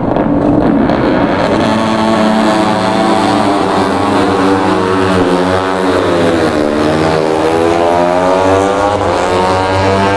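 Racing motorcycle engines running at high revs on the circuit, several bikes heard at once. Their engine notes rise and fall and overlap as they accelerate, shift and pass.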